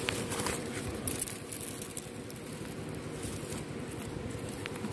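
Tall grass and dry stalks rustling and crackling as they brush against the camera, with a few sharp ticks near the end and a steady low hum underneath.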